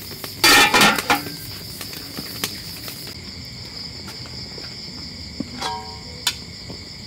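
Aluminium cooking-pot lid clattering down onto the pot about half a second in, followed by a few lighter clinks and a short ringing metal clink near the end. Crickets chirp steadily throughout.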